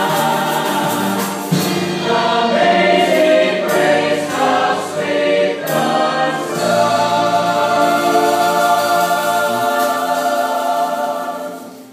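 Mixed Salvation Army songster choir singing a hymn. About halfway through it settles onto one long final chord, which dies away near the end.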